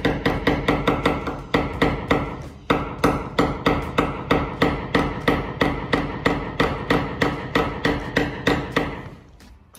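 Claw hammer driving a nail into a wall: quick, even blows about four a second, each with a short metallic ring. A brief pause comes early, and the blows stop just before the end.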